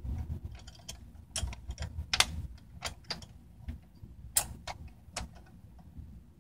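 Irregular sharp metal clicks and taps as the black metal heatsink clamp plates of a fat PS3 are handled and set in place on its metal shield, the loudest clicks about two and four seconds in.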